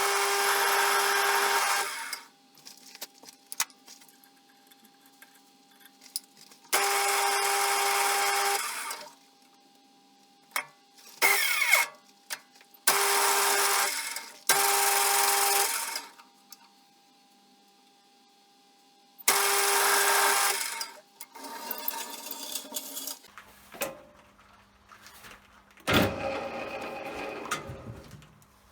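A small electric motor tool run in repeated bursts of about two seconds, each starting and stopping abruptly with a steady whine, with light metal clatter and handling in the pauses between.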